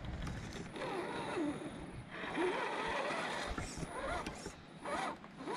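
Electric motor and gearbox of a 1/10 scale RC crawler truck whining, the pitch rising and falling in several short surges as the throttle is worked.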